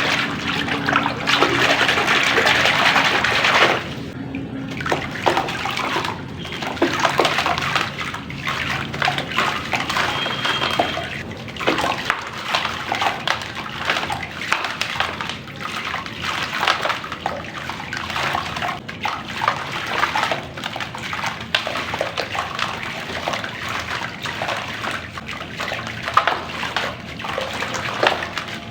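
Crunchy black clay crumbling into water. There is a dense, steady rush of water for the first four seconds or so, then a steady run of irregular crackles and splashes as the pieces break up in the water.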